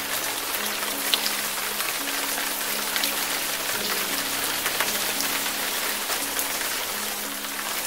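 Steady rain falling on leaves and ground, an even hiss with a few sharper drop ticks. Soft music of low held notes plays underneath.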